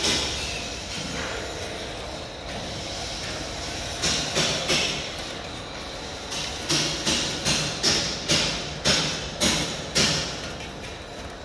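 Rattling metal strikes, about two a second, in two runs: steel tongs clattering on a stainless-steel tray and basket while fried rice crackers are moved off a conveyor fryer. Under them, the fryer runs steadily.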